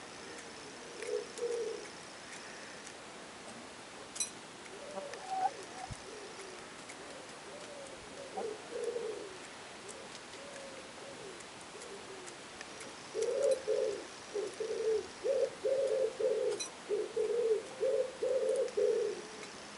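Short, low bird calls: scattered notes at first, then a close run of about a dozen over the last six seconds.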